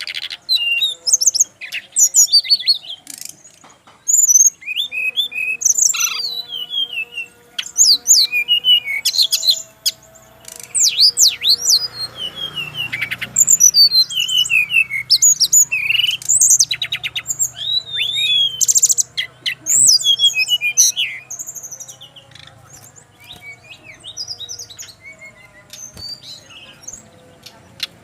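Brown-chested jungle flycatcher (sikatan rimba dada coklat) singing: rapid runs of short, sharp whistles and chirps that slide up and down in pitch, broken by brief pauses, quieter over the last few seconds.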